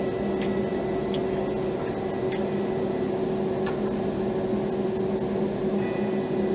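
Steady low hum, with a few faint ticks and a faint high tone near the end.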